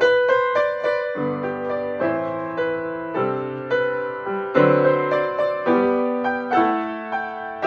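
Upright piano played solo: chords and melody notes struck in turn and left to ring as they fade.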